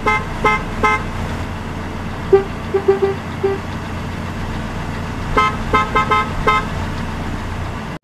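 Two car horns of different pitch honk in short toots, traded back and forth in a rhythm: three higher beeps at the start, a run of lower beeps about two to three seconds in, then about five quick higher beeps near six seconds. A steady low hum runs underneath.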